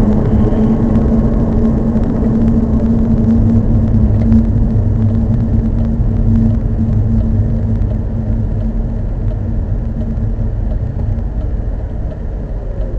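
Car cabin road noise with a steady low hum running through it that fades about eleven seconds in. This is the abnormal noise the driver says has come back despite repeated repairs.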